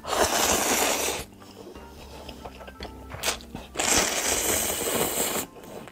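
Loud slurping of big mouthfuls of instant ramyeon noodles, twice: a slurp of about a second at the start and a longer one of nearly two seconds near the end.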